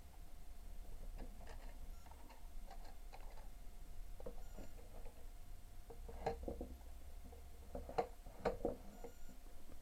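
Irregular light clicks and taps, with a few sharper knocks about six and eight seconds in, over a steady low hum.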